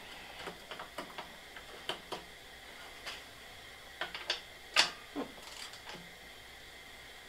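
Irregular clicks and clinks of hand tools on the snowblower's metal parts as fastenings are undone during a belt replacement, with a louder clank a little under five seconds in.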